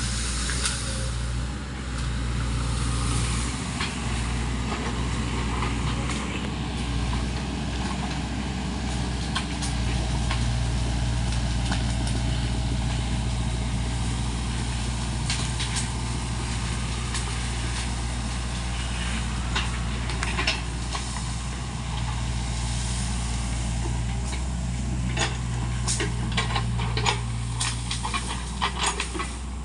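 SANY mini excavator's diesel engine running steadily under load as the machine pushes through bamboo, with scattered snapping and cracking of bamboo stems and brush, thickest near the end.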